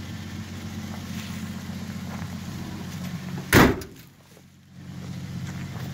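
Steel trunk lid of a 1965 Chevy II four-door slammed shut about halfway through: one loud bang. Under it, a steady low mechanical hum like a distant running engine.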